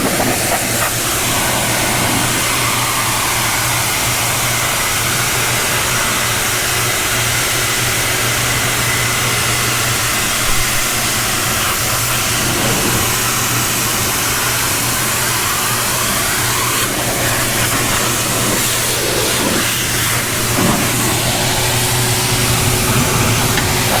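Pressure washer running steadily: a low engine-like hum under the hiss of the water jet, washing the factory oil off new steel.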